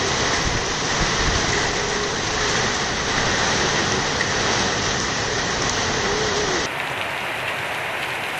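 Heavy rain pouring down on a flat concrete roof and paved ground, a dense steady hiss. Near the end the sound turns duller and a little quieter.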